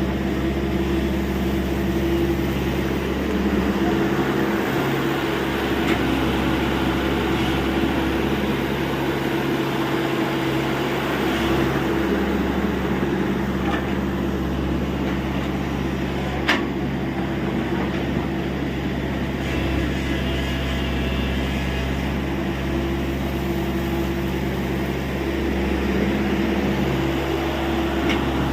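TATA Hitachi EX70 excavator's diesel engine running steadily while digging, its note shifting slightly a few times as the load changes, with one sharp knock about halfway through.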